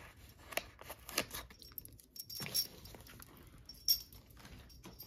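Light clicks, taps and rustles as planner stickers and paper are handled on a desk, with one sharper click about four seconds in.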